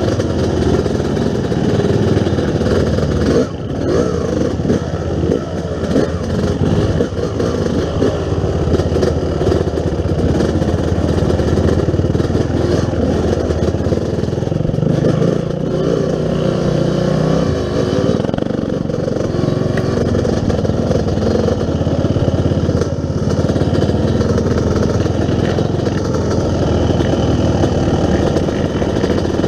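Yamaha YZ250 dirt bike engine running loud and continuous while riding, the throttle easing off briefly a few seconds in.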